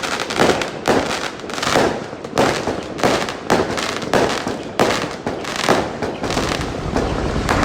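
Fireworks going off in a continuous volley: sharp bangs come several times a second, each trailing off in crackle, with no break.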